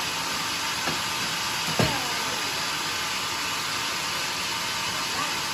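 Homemade sawmill running with a steady noise, with a sharp knock just under two seconds in and a fainter one about a second in.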